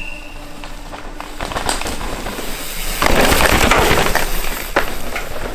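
Downhill mountain bike coming down a wet dirt forest track: scattered knocks and rattles, then about three seconds in a loud rush of tyres tearing through dirt and leaf litter as it passes close, lasting about a second and a half.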